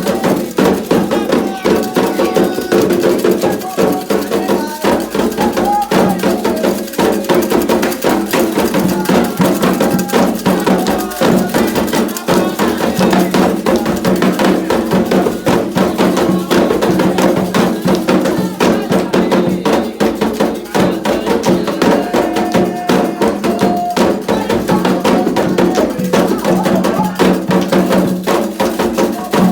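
Candomblé ritual music: fast, steady hand drumming on atabaques with a struck metal bell keeping time, and voices singing a chant over it.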